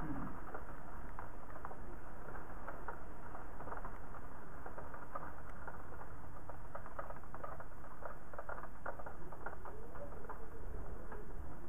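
Rain pattering against a windowpane: a dense, irregular ticking of drops over a steady hiss of falling rain, with a constant low rumble underneath.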